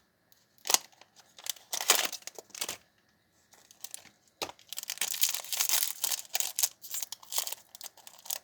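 A candy pack's wrapper crinkling and tearing as it is opened by hand, in irregular rustling bursts that grow busier in the second half.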